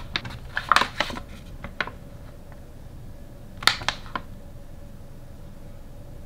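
A sealed plastic pouch being handled on a wooden table: scattered crinkles and taps, a cluster about a second in and a sharper one near four seconds, over a faint steady hum.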